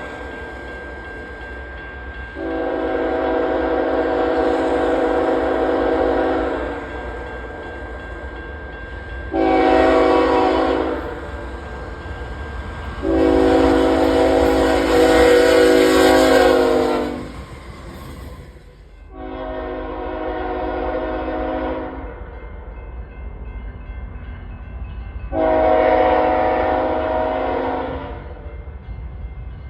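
Train horn sounding a series of blasts at a grade crossing: a long blast, a short one, another long one, then two more long blasts, with another beginning at the very end. A steady low rumble of the passing train runs underneath.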